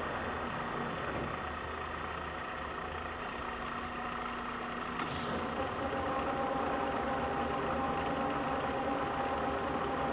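A 30-horsepower LeBlond hollow-spindle engine lathe running, its spindle drive and geared headstock giving a steady hum with several steady tones. About halfway through the note changes and gets a little louder, with new tones coming in, just after a brief higher noise.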